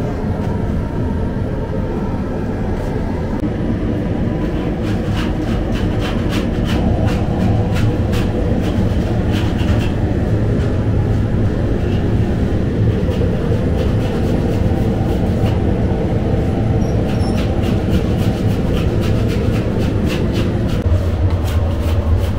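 Loud, steady mechanical rumble of bakery machinery, with a scatter of sharp clicks and clatters over it.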